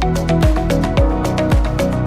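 Background electronic music with a steady kick drum, about two beats a second, over hi-hats and a synth melody.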